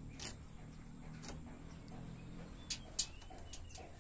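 A few short, sharp clicks and taps spread over the moment, the loudest about three seconds in, over a faint background hiss.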